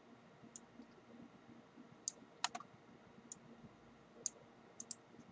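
Faint, irregular computer mouse and keyboard clicks, about eight in all, the loudest about halfway through, over faint steady hiss.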